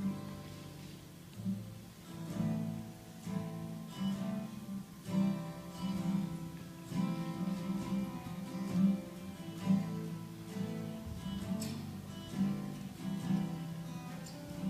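Acoustic guitar playing an instrumental break in a song, chords strummed and plucked in a steady rhythm with no singing.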